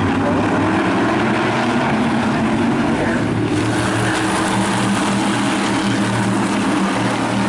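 A pack of SK Light Modified race cars running at racing speed around a paved short oval, their engines blending into one steady, loud sound.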